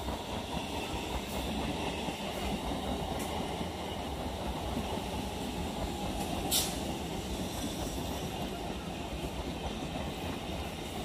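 Electric multiple-unit (EMU) local train rolling in on a nearby track and slowing to a stop: a steady rumble of wheels on rail with a faint squeal. A single sharp click comes about six and a half seconds in.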